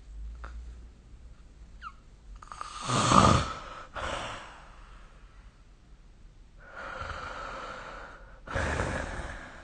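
Snoring in slow, separate breaths. Two loud, rasping snores come about three seconds in and near the end, with quieter breaths between them.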